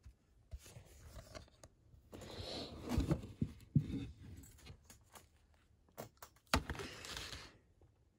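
Plastic-sleeved trading cards being handled: rustling, scraping and clacking of the card sleeves and toploaders against each other and a tabletop, with a few sharp clacks and two longer stretches of rustling.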